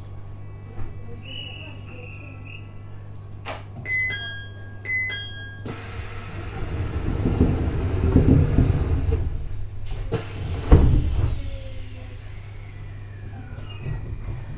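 Inside a JR East E721-series electric train standing at a station: a steady electrical hum, with the two-note door chime sounding twice. The sliding doors then move and shut with a loud thump, followed by a faint falling whistle.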